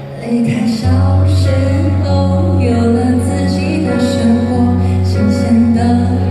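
A woman singing a slow Mandarin pop ballad live over instrumental accompaniment; her voice comes in just after the start and a steady low bass note enters about a second in.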